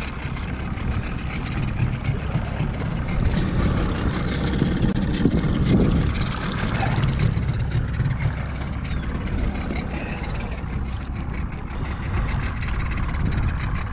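A boat motor running steadily at low trolling speed, a continuous low rumble that swells slightly about halfway through.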